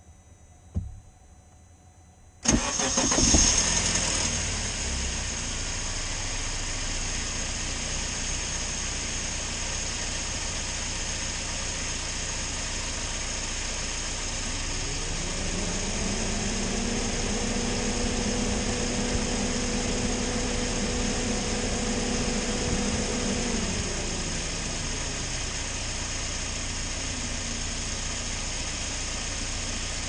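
UAZ engine starting about two seconds in and settling into a steady idle. Later a tone rises, holds for about eight seconds, then drops back.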